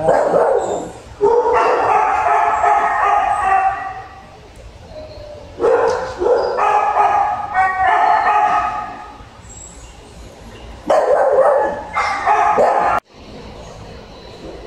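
Shelter dogs barking and yipping in three loud spells, with quieter gaps between. The barking breaks off sharply near the end.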